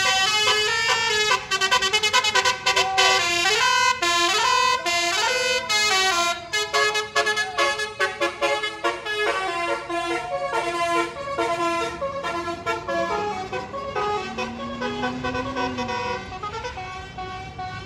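Basuri-type multi-tone bus horn (telolet) on a passing tour bus playing a quick melody of fast-changing notes, loudest in the first half and fading as the bus drives away.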